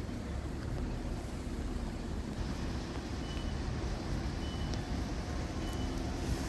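Steady low rumble of road traffic and wind at a closed railway level crossing, with three faint, short, high beeps about a second apart in the second half.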